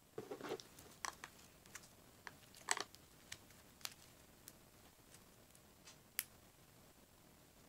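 Gold-leaf slime squeezed and kneaded between fingers, giving faint, irregular sticky clicks and small pops: a little cluster at the start, then single scattered ones that stop about six seconds in.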